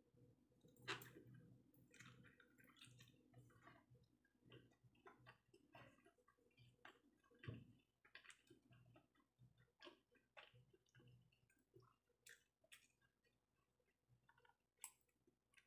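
Faint chewing and mouth sounds of a person eating soft steamed fish siomai, with small irregular clicks and taps and one sharper knock about halfway through.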